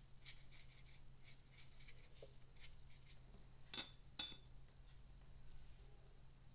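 Watercolour brush strokes scratching faintly on paper, broken by two sharp clinks about half a second apart a little under four seconds in, as the brush knocks against a paint container.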